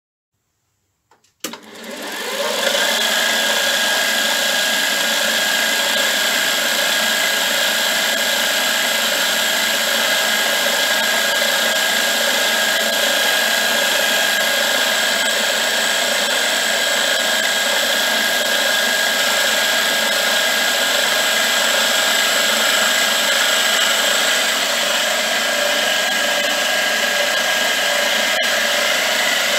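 Milling machine running, its end mill cutting metal as the workpiece turns on a rotary table: a steady machine whine with a cutting hiss. It starts about a second and a half in, after silence.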